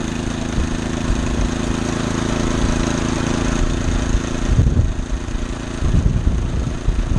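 A homemade motorized rail cart's small engine running steadily as the cart rolls along the rails, with a few low thumps about two-thirds of the way through.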